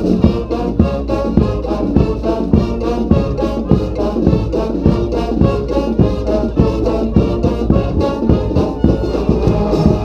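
Street brass band playing: trombones and trumpets in full ensemble over a steady percussion beat.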